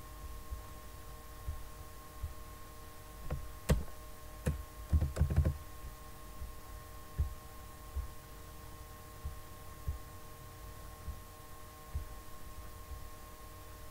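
Computer keyboard keys and mouse clicks. A few clicks come about three to four seconds in and a short burst of typing about five seconds in, then single clicks roughly once a second, all over a steady electrical hum.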